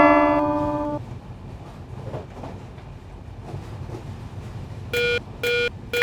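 A bright ringing chord struck once, dying away over about a second, then a few seconds of faint low rumble; about five seconds in, a Japanese railroad crossing warning bell starts dinging about twice a second.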